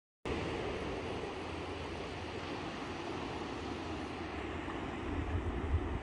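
Steady hiss of surf washing over a tidal flat, with wind rumbling on the microphone that gusts harder about five seconds in.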